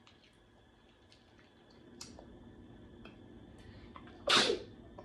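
A single short sneeze, a bit over four seconds in, with faint small ticks and clicks before it.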